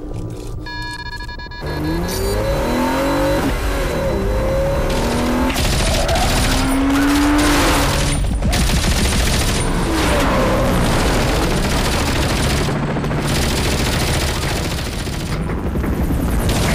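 Action-film sound mix: rapid automatic gunfire over a car engine revving hard, with tyres squealing. It comes in loudly about two seconds in.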